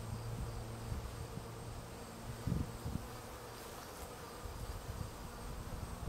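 Honeybee swarm clustered on a tree branch, buzzing as a steady low hum, with a brief low rumble about two and a half seconds in.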